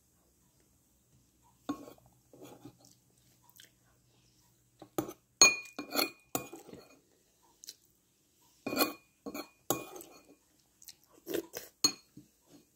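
Soft chewing of chicken feet, then a metal spoon clinking and scraping against a ceramic bowl of porridge: a run of sharp, ringing clinks from about five seconds in.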